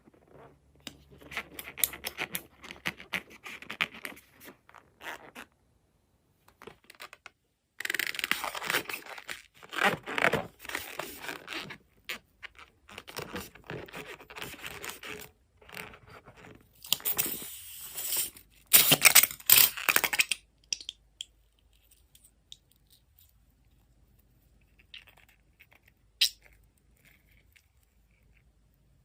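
Balloon rubber and slime being handled close up: scraping, crinkling and tearing noises in bursts for about twenty seconds, then only faint scattered clicks.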